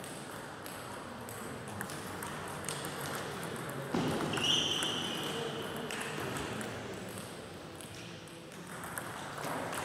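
Table tennis balls clicking sharply off bats and tables, from the match and from other tables in play around it. A short, high squeak comes about four seconds in.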